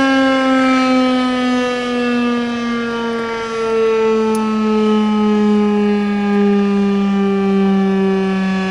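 Federal Signal outdoor tornado warning siren sounding one long tone for a tornado warning. The tone slides slowly and steadily lower in pitch as the siren winds down.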